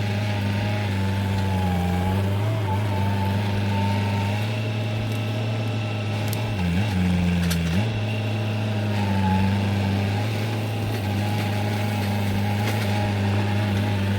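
Diesel engine of a tracked land-clearing machine running steadily at working speed, with a higher hydraulic whine that wavers in pitch. The engine note drops briefly about seven seconds in, then recovers.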